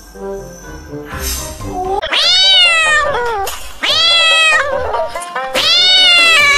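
A cat yowling in three long drawn-out calls, each arching up and then down in pitch, starting about two seconds in.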